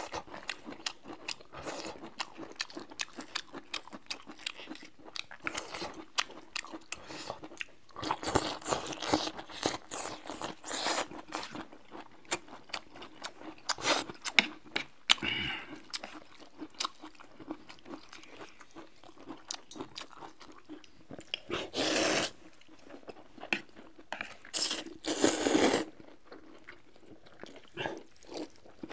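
Close-miked eating: crunchy bites into cooked bamboo shoots and steady chewing, with many short crisp clicks. Several louder noisy stretches of about a second each come through.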